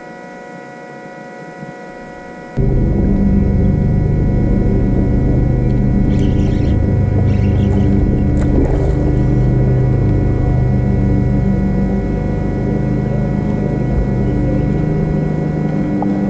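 Electric trolling motor humming with a steady whine, jumping to a much louder drone about two and a half seconds in as it runs at higher speed.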